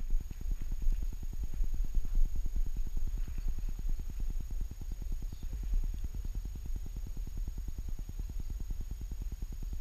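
A wolfdog panting rapidly and evenly, several breaths a second, picked up through the camera strapped to its back and slowly getting fainter, over a low rumble of wind on the microphone.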